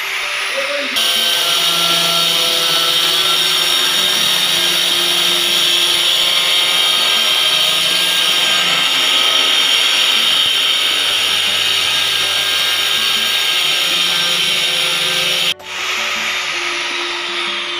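Handheld electric stone cutter cutting through a stone floor slab: a loud, steady grinding whir that drops off suddenly about fifteen seconds in, leaving a quieter sound.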